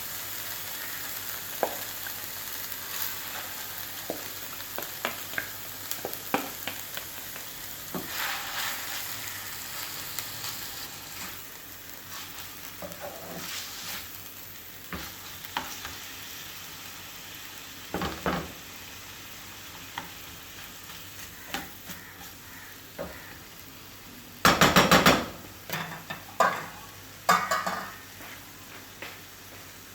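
Food sizzling in a frying pan while a utensil stirs it, with scattered scrapes and knocks against the pan and the sizzle slowly easing. A loud spell of clattering comes about 25 seconds in.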